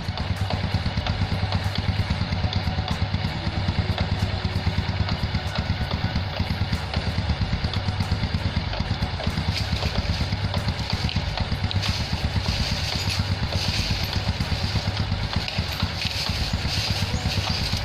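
Honda Supra X125's single-cylinder four-stroke engine idling with an even pulsing beat, a brighter hiss rising over it from about ten seconds in. The owner suspects a rattle in this engine comes from the one-way clutch of its centrifugal clutch.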